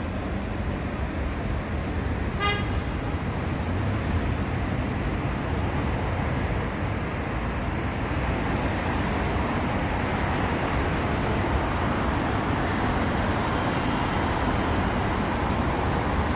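Steady road traffic from a busy multi-lane road, cars passing continuously, with one short car-horn toot about two and a half seconds in.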